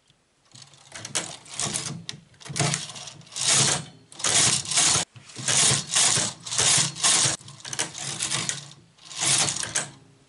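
Flatbed home knitting machine being knitted: the carriage is swept back and forth across the needle bed, each pass a short rasping clatter of needles and cams, about one pass a second, over and over.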